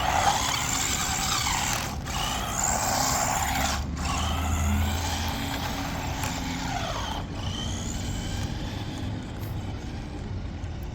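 Small brushed electric motor and gearing of a 1/14-scale JJRC Rigid C8805 RC truck whining as it is driven, the whine rising and falling several times with the throttle, over a steady hiss of tyres on wet ground.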